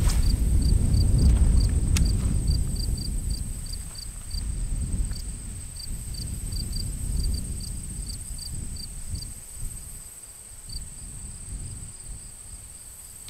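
Insects buzzing in a steady high drone, with short high chirps repeating a few times a second that stop about eleven seconds in. Wind rumbles on the microphone, strongest in the first few seconds.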